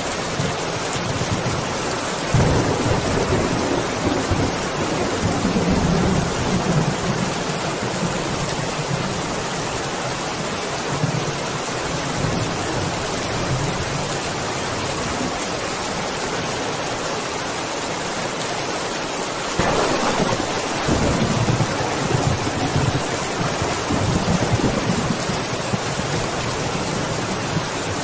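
Thunderstorm: steady rain throughout, with rolling thunder, one long rumble a couple of seconds in and another starting about two-thirds of the way through.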